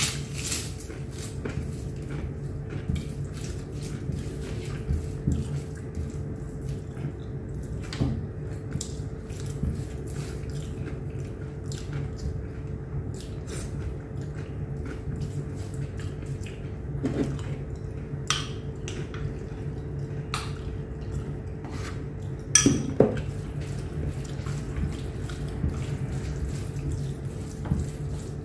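A person eating chicken biryani by hand: wet mouth clicks and chewing, and fingers working rice on a plate, with a few louder knocks against the plate. A steady low hum runs underneath.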